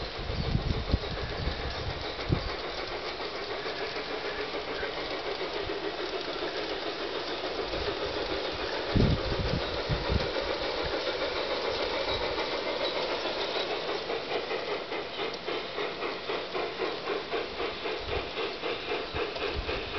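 Two LGB Mallet G-scale model steam locomotives working together under load up a steep grade: a steady whir and hiss with steam-style chuffing that settles into a regular beat in the second half. A few dull low bumps come near the start and about nine seconds in.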